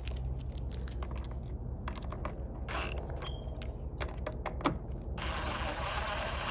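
Scattered small metallic clicks and taps as screws and a mounting bracket are worked at a metal junction box. About five seconds in, a cordless drill runs steadily for a little over a second, driving a screw.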